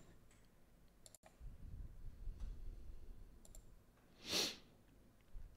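Computer mouse clicks, a few sharp single clicks spread out, with a low rumble in the middle and one short puff of noise, louder than the clicks, about four seconds in.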